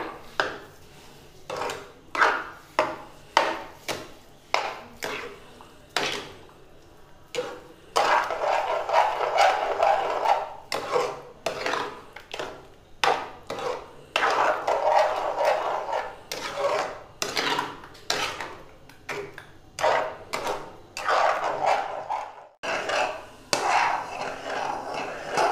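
A metal spoon scraping and knocking against a metal kadhai as a thick chana dal halwa mixture is stirred after sugar has gone in. Short strokes come about once a second at first, then turn into longer stretches of continuous scraping.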